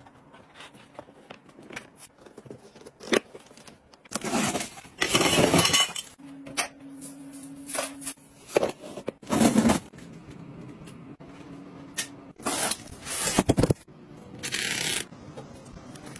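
Handling sounds of household items: scattered clicks and taps, and several loud bursts of scraping and rustling, the longest about two seconds.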